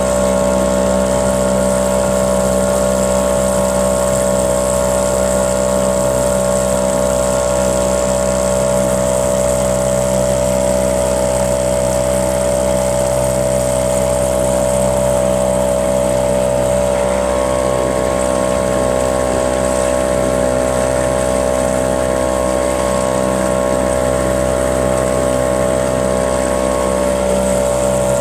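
Small boat's motor running steadily at constant speed, an even drone with no change in pitch.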